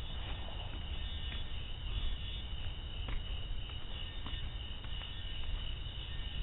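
Steady high-pitched chirring of night insects, likely crickets, over a low rumble on the microphone.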